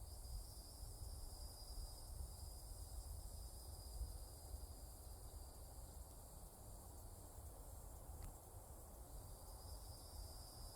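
Faint, steady high-pitched insect trill that fades away mid-way and returns near the end, over a low rumble of wind or handling noise on the microphone.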